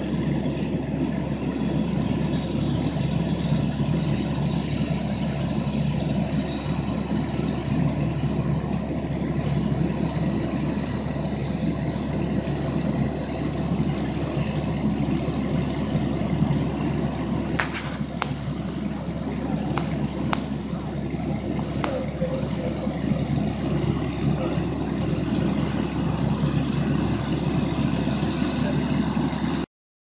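Fire truck diesel engine running steadily at the scene, driving the pump that feeds the charged hose lines. A few sharp knocks or clanks come in the middle, and the sound cuts off just before the end.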